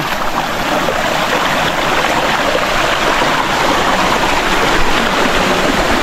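Waterfall stream rushing over rocks: a loud, steady rush of water.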